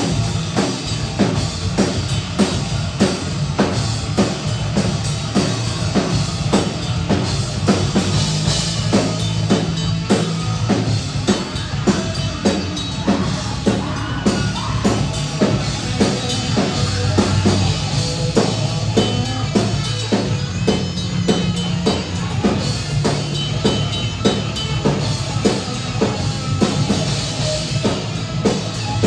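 A live rock band playing a thrash metal song: the drum kit keeps a fast, steady beat of bass drum and snare under guitars and bass.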